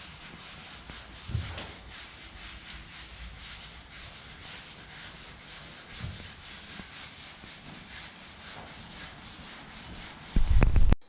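Steady rhythmic rubbing or scraping, about four strokes a second, with a loud low knock near the end.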